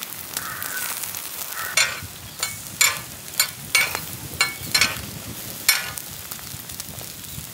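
Eggs sizzling on a large flat griddle, with metal spatulas scraping and knocking against the pan in about eight sharp strokes, starting about two seconds in, as the fried eggs are lifted and turned.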